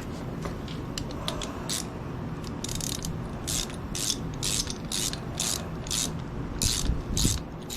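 Hand ratchet wrench clicking in repeated strokes. There are a few scattered clicks at first, then about two strokes a second, as a bolt is worked through damaged threads to chase them clean.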